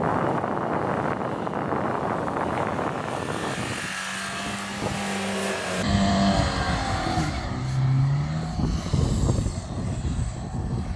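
Chevrolet Niva's engine revving as it ploughs through deep snow with its wheels spinning.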